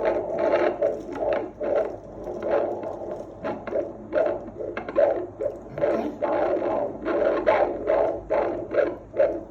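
Fetal heartbeat of a 29-week twin through a handheld fetal Doppler's speaker: a rapid whooshing pulse, about two to three beats a second.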